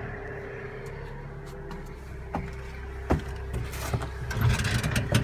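Knocks and clunks of someone climbing the steps into a Case SPX 3185 self-propelled sprayer's cab and handling the cab door: single sharp knocks about two, three and four seconds in, then a quick run of clunks near the end, over a steady hum.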